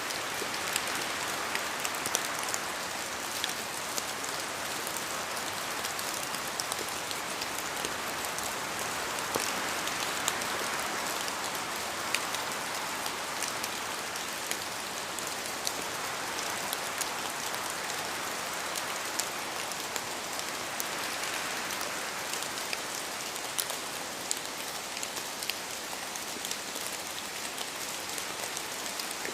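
Steady rain, with many separate drops striking close by over a continuous hiss that swells and eases gently every ten seconds or so.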